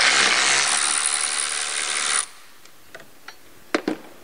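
Cordless electric ratchet running as it spins out a 10 mm bolt from the intake plenum bracket, for about two seconds before it stops suddenly; a few light metal clicks follow near the end.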